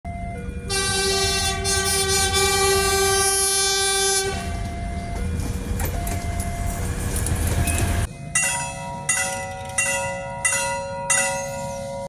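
Commuter Line Prameks diesel train sounding one long horn blast of several tones together, lasting about three and a half seconds, over the diesel engine's rumble as it approaches. The rumble cuts off about eight seconds in, and a bell-like chime rings about five times, one strike every second or less.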